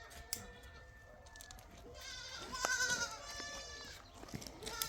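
A goat bleating: one long, wavering call about two seconds in, and a shorter call near the end.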